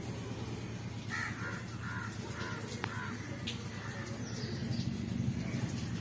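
A crow cawing four times in quick succession, starting about a second in, over a steady low hum.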